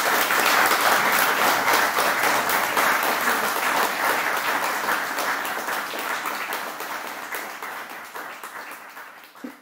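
Audience applauding, a dense clatter of many hands clapping that slowly fades away in the last few seconds.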